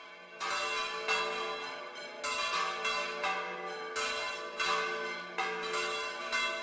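Church bells ringing a peal: several bells struck one after another, their tones ringing on and overlapping. It fades in and the strikes start about half a second in.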